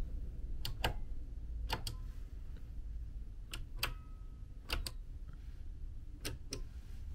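Push-button light switches on a wall panel clicking as they are pressed to switch the room lights, five presses, each a quick double click.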